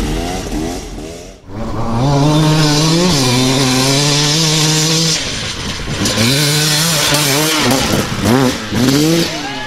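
Enduro dirt bike engine revving hard, holding a high, fairly steady pitch for a few seconds. It then rises and drops several times as the throttle is opened and shut.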